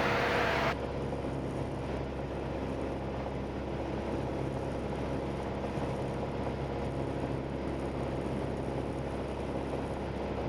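Steady drone of a light single-engine airplane's piston engine and propeller, heard inside the cabin. A hiss over it drops away about a second in.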